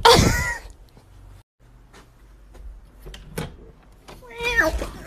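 A short, high, wavering cry at the start, then a second cry near the end, with a few light knocks in between.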